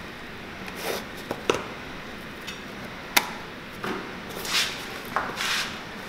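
Utility knife blade cutting and prying at the crumbling old sole and insole of a leather boot, stuck together with hardened, crispy glue: a series of short scraping, crackling strokes, with a sharp crack about three seconds in.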